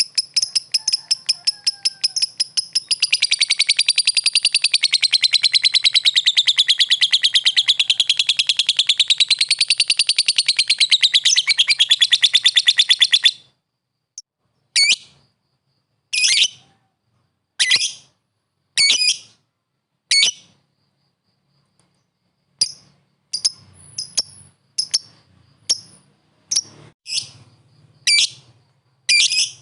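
Lovebird giving a long, rapid chattering trill, its pitch wavering up and down, which stops abruptly about thirteen seconds in. After a short pause it gives a string of separate short high calls, about one every second or so.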